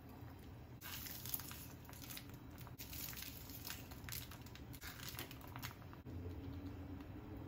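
Light crackling and rustling as handfuls of chopped green onion are picked up and scattered over a pot of soup, a run of small crisp ticks for several seconds, with a low steady hum underneath.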